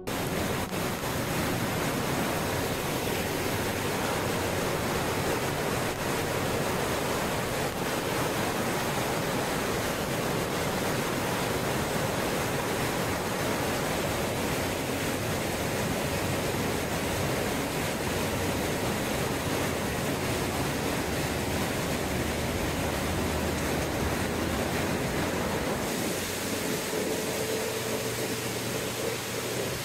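Steady rushing of a fast-flowing stream, an even, unbroken wash of noise with no let-up.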